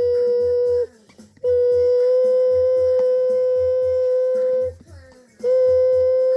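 Washing machine motor running in a spin with a steady high whine and a regular low knock about three times a second. The whole sound cuts out twice, about a second in and again about five seconds in, each time for about half a second before starting again.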